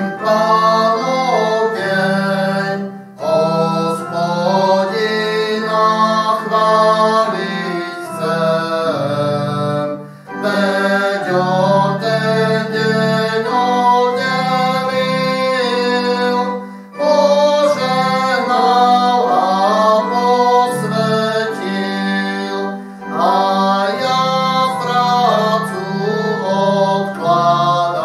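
A hymn sung to organ-sound accompaniment from a digital keyboard, in phrases with short breaks every few seconds.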